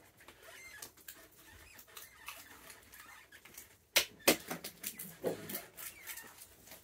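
Peanuts in the shell clicking and rustling as they are handled, with two sharper clicks about four seconds in.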